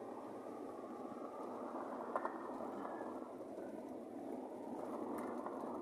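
Steady road and engine noise of a vehicle driving, with a faint click about two seconds in.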